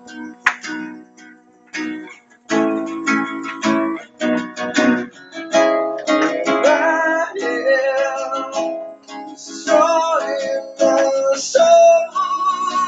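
Acoustic guitar strummed in a song, starting after a short pause about two and a half seconds in, with a voice singing over it from about halfway through.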